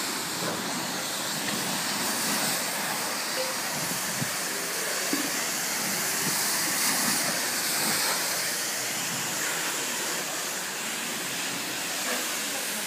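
High-pressure car-wash wand spraying water onto a bus body: a steady hiss.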